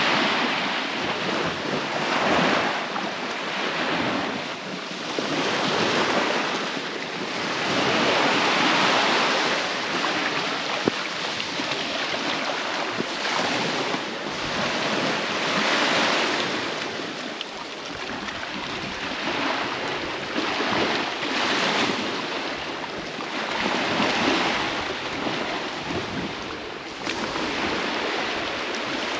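Small waves breaking and washing up onto a sandy beach, the surf swelling and fading every few seconds, with some wind on the microphone.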